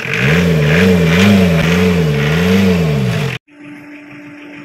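Tata Indica indirect-injection diesel engine running just after a head gasket replacement, its pitch rising and falling in slow swells about three times. About three and a half seconds in, the sound cuts off suddenly, and a quieter steady hum with a single steady tone follows.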